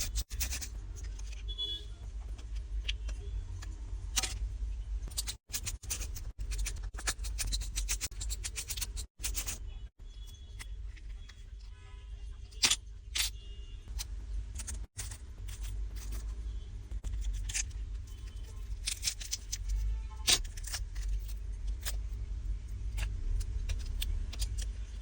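Small metal tools and phone parts clicking, tapping and scraping in many short, cut-together pieces, over a steady low hum.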